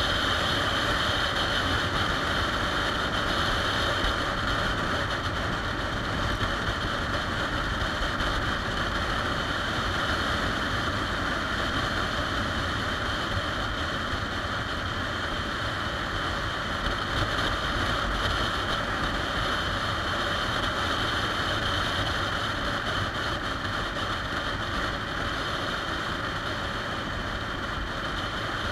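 2013 Triumph Rocket 3 Touring riding at a steady road speed, heard from a camera on the bike: a steady rush of wind and road noise over the low running of its 2.3-litre three-cylinder engine.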